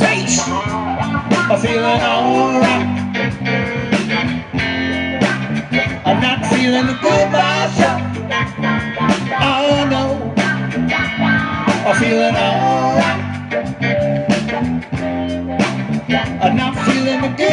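Blues-rock music with a steady beat: a guitar lead bending and wavering over bass and drums.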